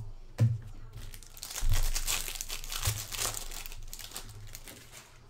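Plastic trading-card pack wrapper crinkling as it is handled, with a dense burst of crackling in the middle and a few dull knocks.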